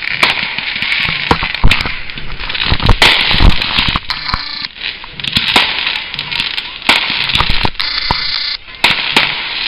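Fireworks display: aerial shells bursting in a rapid, irregular run of sharp bangs, with crackling stars between them.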